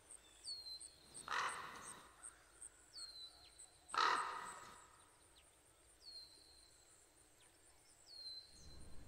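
Birds calling outdoors: short high falling notes repeat every couple of seconds, with two louder harsh calls, over a faint steady high ticking.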